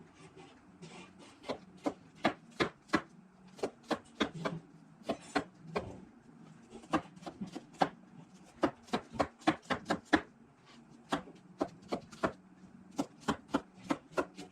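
Knife chopping onion on a wooden cutting board: irregular sharp taps, two to four a second, with short pauses.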